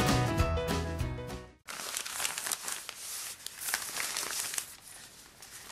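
Background music that cuts off suddenly about a second and a half in, followed by the crinkling and rustling of packaging being handled as craft items are unwrapped.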